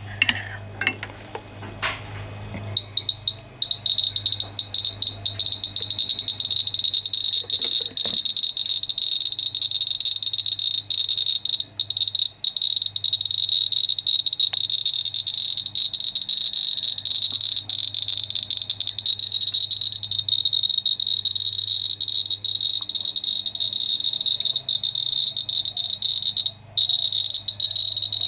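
Geiger counter speaker clicking so fast that the clicks run together into a dense, crackling buzz. This is a very high count rate, which puts the needle off scale on the low range, from orange Fiestaware with uranium in its glaze. Before the clicking starts, about three seconds in, a few separate clicks are heard as the range switch is turned.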